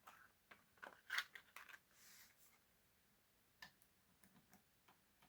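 Faint metallic clicks and ticks of lock-picking tools, a tension wrench and pick, handled in and against a challenge lock's keyway, thickest about a second in and sparser afterwards.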